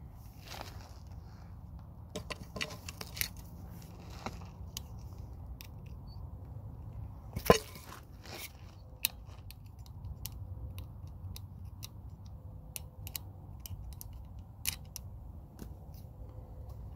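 Scattered clicks and light clanks of hand tools and parts being handled during work on a truck's front wheel hub, with one sharp knock about seven and a half seconds in, over a steady low rumble.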